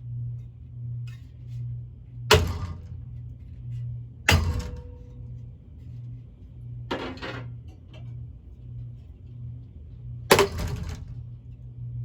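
A running cheap ceiling fan's motor hums with an even pulsing wobble. A hockey stick strikes the spinning wooden blades four times, each hit a sharp crack followed by a brief rattle. The first and last hits are the loudest.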